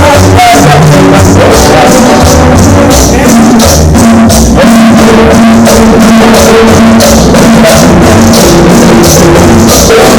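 Loud music with a steady beat, drums and shaker over bass and held notes, played through a bar's sound system during a sound check.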